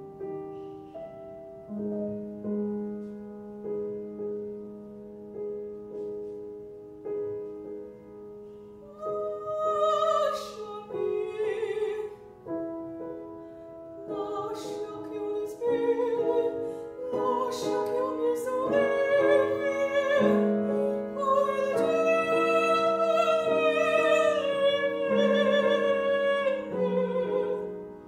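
Grand piano playing a chordal introduction, then a female classical singer enters about nine seconds in and sings with vibrato over the piano accompaniment.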